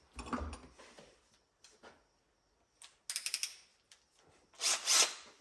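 Tools being handled on a workbench while a drill bit is picked out and set up: a short rustle just after the start, a quick run of about half a dozen sharp clicks about three seconds in, and a louder scraping rustle near the end.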